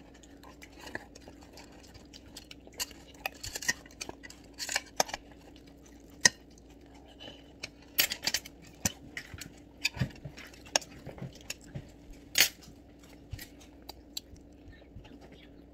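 Metal spoon and chopsticks clinking and scraping against stainless steel meal trays, in irregular scattered clinks.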